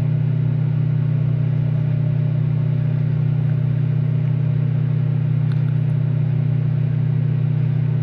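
Microwave oven running on a heating cycle, with its turntable turning: a steady, loud, low hum.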